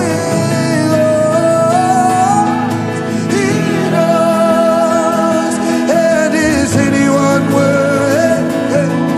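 Worship song: a male vocalist sings long, wavering held notes over steady instrumental accompaniment.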